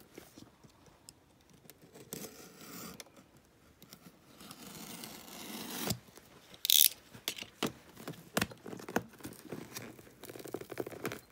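A taped parcel being opened by hand: fingers picking and scraping at packing tape and wrapping, with rustling, small clicks and one short, sharp tear a little past the middle.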